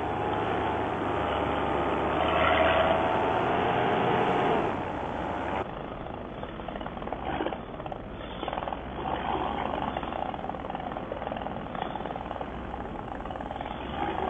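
Paramotor engine and propeller running steadily, its pitch wavering slightly. About five and a half seconds in the sound abruptly drops in level, and the engine goes on more quietly.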